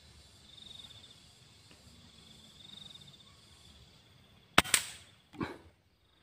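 An air rifle fires once at a squirrel in a tree: a sharp crack about four and a half seconds in, then a duller knock under a second later, and the shot is a hit. Insects trill softly, swelling and fading twice before the shot.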